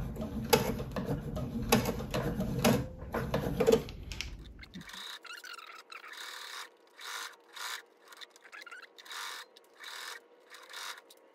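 Sewing machine stitching slowly through the thick layers of a quilted oven mitt and its binding, with a tick at each stitch about every half second. It stops about four seconds in, and fabric then rubs and shifts in fits as the work is turned under the presser foot.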